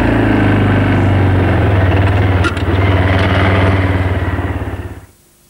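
Kawasaki quad bike (ATV) engine running steadily as the quad moves off, with a couple of faint clicks about halfway through. It fades out about five seconds in.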